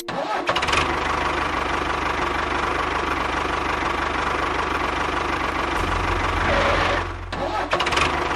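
An engine running steadily, its low hum getting louder about six seconds in, with brief breaks just at the start and about seven seconds in.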